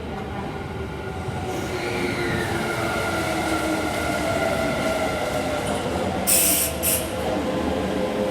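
Electric train running through the station with squealing wheels and a whine that falls in pitch, getting louder as it comes near. Two short, loud hisses come about six and seven seconds in.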